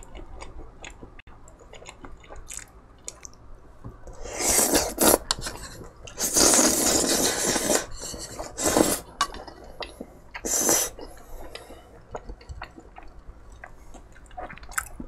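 Slurping noodles and spicy tteokbokki sauce from a ladle, in several noisy bursts, the longest near the middle. Between the slurps come chewing and light clinks of chopsticks against the dishes.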